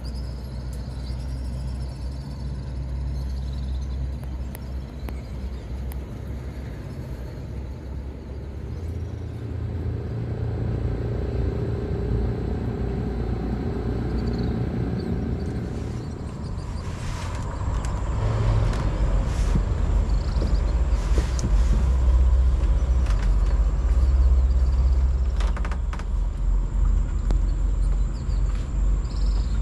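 Steady low rumble of a small fishing boat's outboard motor running under way, growing louder about halfway through.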